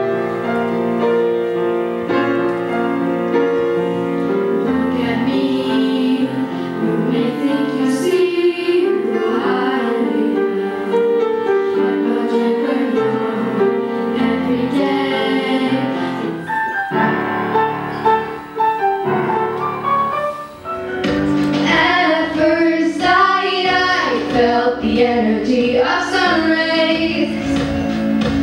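A small group of children singing with piano accompaniment. About twenty seconds in the music breaks off briefly and a new song begins, a little louder.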